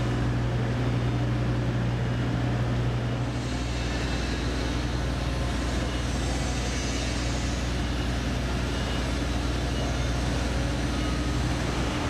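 Steady drone of construction machinery running: a low hum with a hiss over it, the hum changing slightly a few seconds in.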